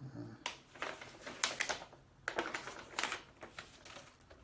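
Paper and packaging being handled, most likely the pages of a user manual flipped through: a run of irregular crisp rustles and taps.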